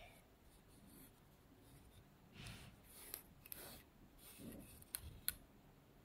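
Faint rubbing and scraping as a small plastic building-brick model is turned by hand on cloth, with two small sharp clicks near the end.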